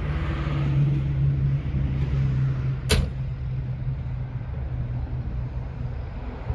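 A mini truck's door shutting with a single sharp knock about three seconds in, over a steady low hum and outdoor noise.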